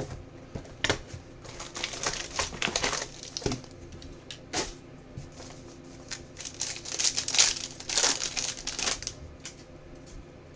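Hands opening a trading-card box and its packs: irregular crinkling and rustling of wrappers and cardboard, with bursts about two seconds in and again around seven to nine seconds in.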